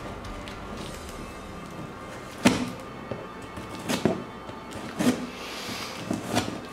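Scissors cutting through packing tape on a corrugated cardboard box, over background music. There are four sharp snips spread through the clip, the first the loudest.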